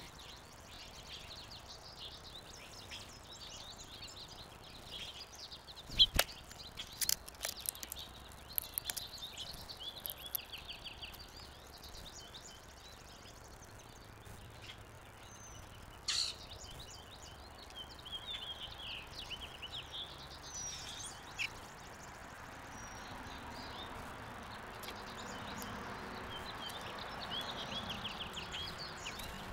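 Small wild birds chirping and trilling on and off. A few sharp knocks, the loudest about six seconds in, stand out above them. A soft rushing noise builds over the last several seconds.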